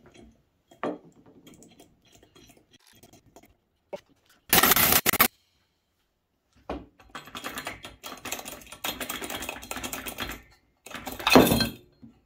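Cordless impact driver hammering the centre bolt of a flywheel puller, pressing the flywheel off the crankshaft of a 1980 Yamaha Enticer 340 snowmobile engine. A short loud burst comes about four seconds in, a longer rattling run follows, and the loudest burst comes near the end. Light clicks of hands and tools on the puller come before.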